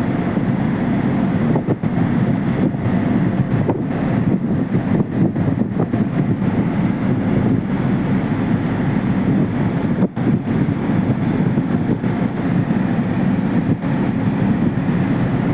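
Low, steady rumble of a ferry's engines and water noise while berthing, with wind buffeting the microphone in uneven gusts.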